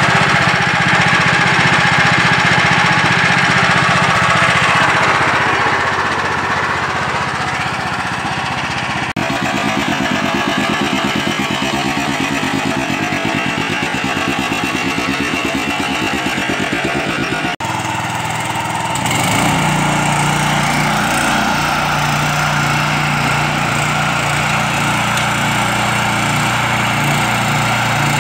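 Walk-behind mini tractor's small engine running steadily under load as its rotary tiller works the soil. The sound breaks off suddenly twice, about nine and seventeen seconds in, and after about nineteen seconds a deeper, steadier hum comes to the fore.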